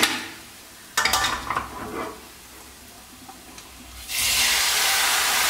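Metal clinks and scraping of a steel pot against the pan, then about four seconds in a loud, steady sizzle starts as boiled beef liver with its cooking liquid is poured into the hot spice-and-onion masala.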